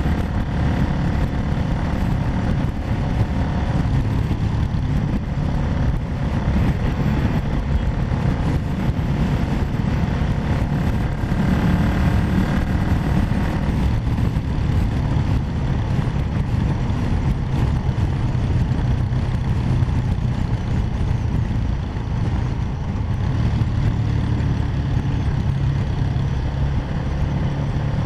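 Quad bike engine running steadily at road speed, with wind rushing over the helmet-mounted camera's microphone.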